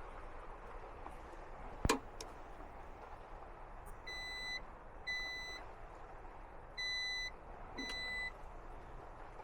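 An electronic beeper sounds four short beeps of one pitch, in two pairs. A single sharp click comes about two seconds in, before the beeps.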